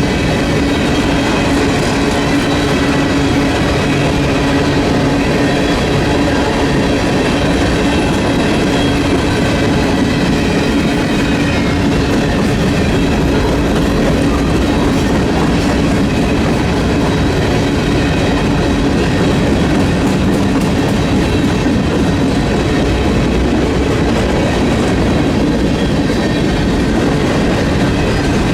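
Union Pacific freight train's cars rolling past on the rails, a loud, steady rumble of wheels and railcars that does not change.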